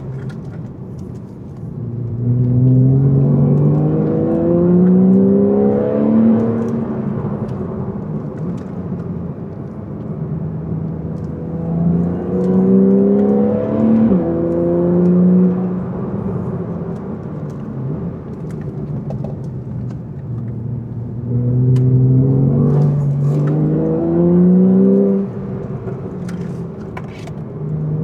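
Porsche 911 flat-six engine accelerating hard three times, its pitch climbing through each pull. The first pull lasts about four seconds, and the second ends in a sudden drop in pitch like an upshift. Between the pulls the engine runs quieter at lower revs.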